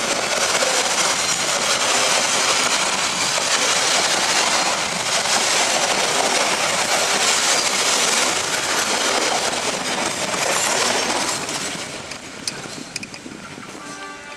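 Passenger train coaches rushing past at close range, steel wheels rumbling and clattering on the rails. The noise holds steady and loud, then fades over the last few seconds as the train recedes, with a few sharp clicks from the wheels near the end.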